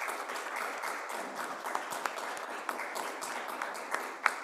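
Audience applauding steadily, with a few sharper single claps near the end.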